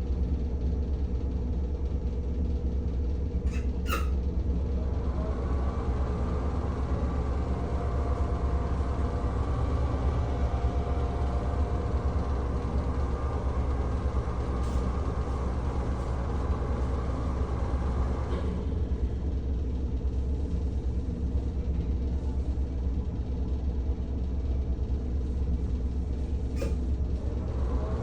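NuTone 696N bathroom exhaust fan running with a steady low motor hum. About four seconds in, after a brief tick, a higher whining tone rises over the hum, holds for about fifteen seconds and stops, then starts again near the end: the sound of the fan's bad, dust-caked motor bearings.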